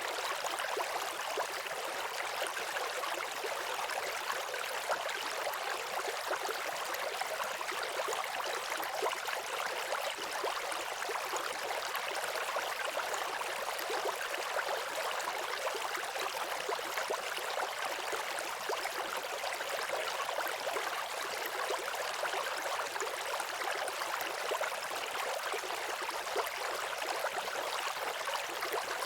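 Waterfall: a steady, unbroken rush of falling water, hissy and thin, with little low rumble.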